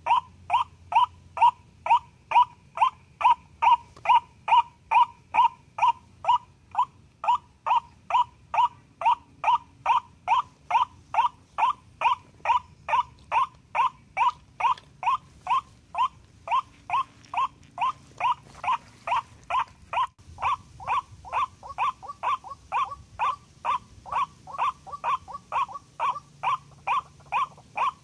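White-breasted waterhen call, a monotonous 'kwak' repeated at a steady pace of about three a second. It is the lure call used to draw a ruak-ruak in to the snares.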